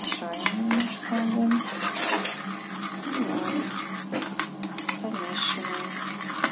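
A utensil clinking, knocking and scraping against a pot as boiling honey and sugar caramel is stirred, in quick irregular strokes.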